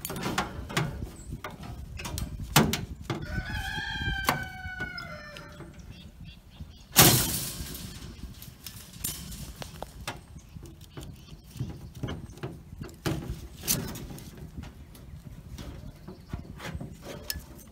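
A rooster crows once, a single drawn-out call starting about three seconds in. Around it come scattered metal clanks and knocks from handling a metal hog feeder and wire fence panel, the loudest a sharp bang about seven seconds in.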